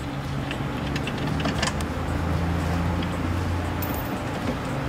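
Irregular light metallic clicks and taps as a hand Torx driver works the window regulator motor's mounting bolts and the motor is worked loose, over a steady low hum.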